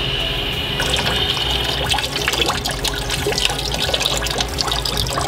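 Liquid pottery glaze running off a large flower pot and splashing into a bucket of glaze: a steady trickle with many drips, picking up about a second in.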